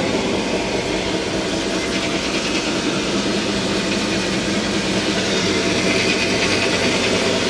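Machine-driven flour mill running, a steady loud hum and rumble of the milling machinery with several even tones.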